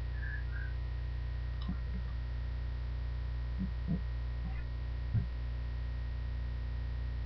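Steady low electrical hum with a faint constant whine, as picked up by a desk recording setup. A few soft low thumps are heard about two, four and five seconds in, the one near five seconds the loudest, and a faint high double blip comes near the start.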